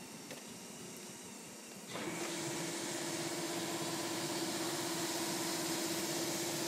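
A machine switches on abruptly about two seconds in and runs steadily, with a hiss and a steady hum.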